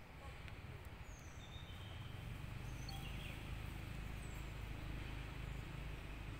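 Outdoor ambience: a steady low rumble, a little louder after about two seconds, with a few short, high chirps from birds.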